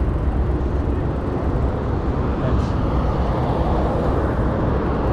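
Steady, mostly low noise of a mountain bike being ridden over a soft, sandy dirt trail: wind on the bike-mounted or rider's camera microphone mixed with the tyres rolling through sand.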